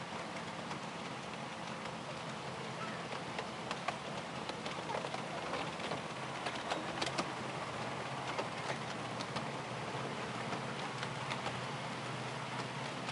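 A 7¼ inch gauge miniature train running, heard from on board: a steady low hum under a constant hiss, with frequent small clicks from the wheels and track.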